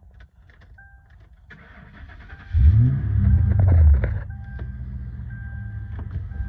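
A 2003 Mercury Marauder's 4.6-litre DOHC V8 starting after an oil change: the starter cranks briefly, the engine catches about two and a half seconds in with a rise and fall in revs, then settles to a steady idle. A dash chime dings about once a second once it is idling.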